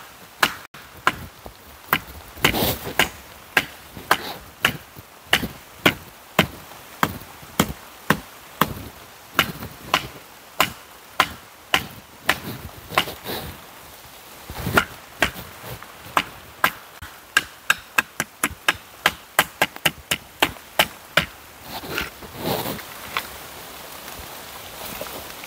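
Repeated chopping blows of a hand blade into hard, dry wood, about two strokes a second, with a pause near the end.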